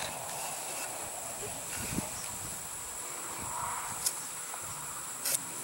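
Steady high-pitched insect chorus, with a couple of faint short clicks about four and five seconds in.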